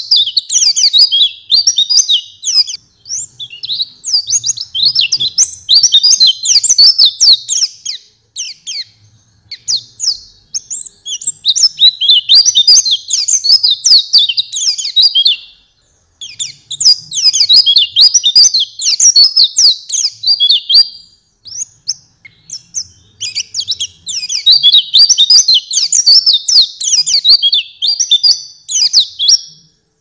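White-eye (pleci) song: fast, high twittering chirps in four long bursts of several seconds each, with brief pauses between. This is a tutor recording of the kind played to caged white-eyes to train their song.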